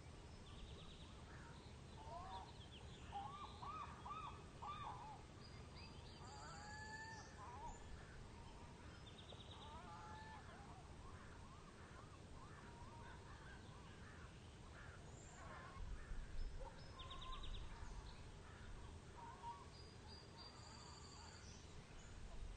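Faint outdoor nature ambience of assorted bird calls, short honking and chirping calls with some quick trilled pulses, over a steady low background; the same sequence of high calls comes round again about fourteen seconds later, as in a looped ambience track.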